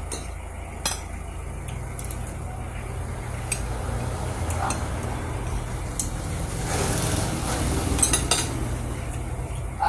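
Metal spoons and forks clinking and scraping against ceramic plates as two people eat rice. A few sharp clinks stand out, several close together near the end, over a steady low hum, and a rush of noise swells briefly around seven seconds in.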